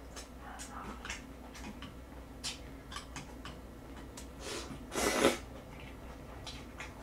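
Close-miked eating sounds: wet lip smacks and chewing clicks, with one louder slurp of noodles about five seconds in.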